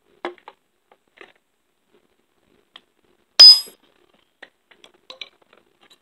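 One sharp metal-on-metal clink, ringing briefly, about three and a half seconds in, among light scattered clicks of small steel chainsaw-chain parts being handled during chain repair.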